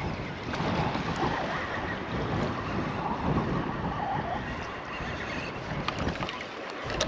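Wind buffeting the microphone in uneven gusts, with small waves lapping at the lake's edge.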